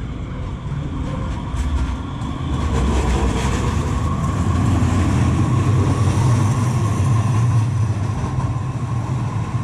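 Two-car Muni Metro light rail train running past on street tracks, getting louder as it nears and passes close by, with a low rumble and a steady whine.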